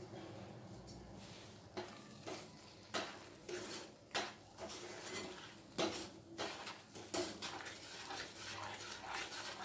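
Powdered rock sugar poured into a stainless steel frying pan, then a wooden spatula stirring it into ginger paste, with irregular knocks and scrapes against the pan from about two seconds in.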